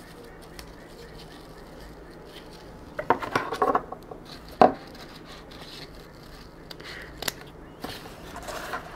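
Wide ribbon rustling and scraping as hands wind it into loops, starting about three seconds in. There is a sharp click near the middle and another later.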